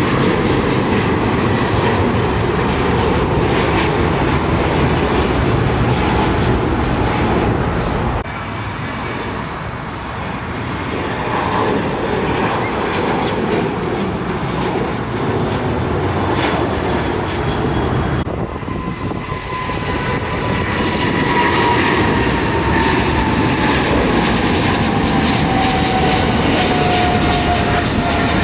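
Jet airliners climbing out at takeoff thrust, a loud steady engine roar in three takes cut together about 8 and 18 seconds in: a Qatar Airways Airbus A350, a United Boeing 737, then a China Airlines Cargo Boeing 777 freighter. In the last take a whine slowly falls in pitch as the 777 climbs past.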